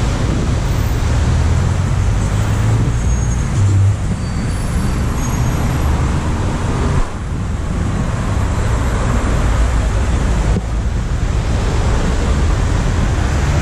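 Car driving through city traffic: steady road and vehicle noise with a heavy low rumble, dipping briefly twice.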